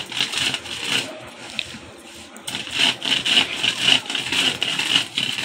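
Hand grinding stone: a stone roller rubbed back and forth over a flat grinding stone, making a rhythmic gritty scraping that eases off for a second or so and then picks up again.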